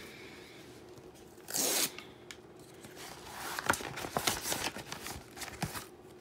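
Mail packaging being torn open: one short rip about one and a half seconds in, then a couple of seconds of crinkling and rustling of paper and plastic wrapping.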